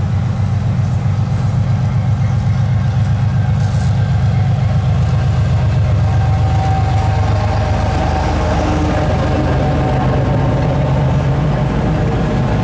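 2TE10U twin-section diesel locomotive, with its two-stroke opposed-piston 10D100 engines running, passing at close range at the head of a freight train, then the freight wagons rolling by near the end.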